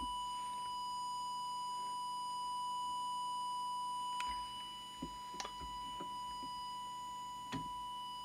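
Steady whistle-like audio test-oscillator tone, used as the test signal for setting a CB transmitter's FM deviation. A few short clicks from bench handling come in over it in the second half.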